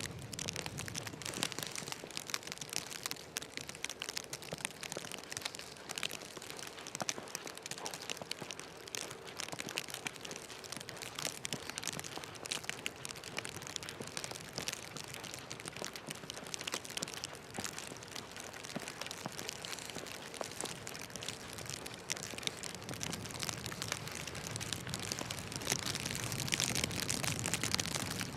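Steady crackling patter of rain falling on hard surfaces, with a low rumble swelling near the end.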